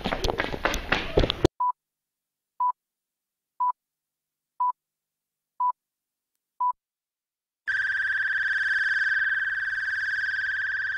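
A brief scuffle of knocks and camera handling cuts off abruptly, followed by six short electronic beeps, one a second, in otherwise dead silence. Then a steady high-pitched electronic tone with hiss comes in, a video static sound effect.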